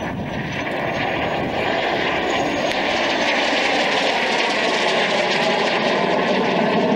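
Hunting Percival Jet Provost jet trainer flying a low display pass, its Armstrong Siddeley Viper turbojet producing a steady jet rush that grows steadily louder as the aircraft approaches.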